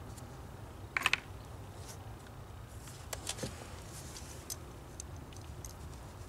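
Small steel sewing-machine hook and shuttle parts clicking against each other as they are handled in the fingers: a quick cluster of three clicks about a second in, then a few lighter ticks.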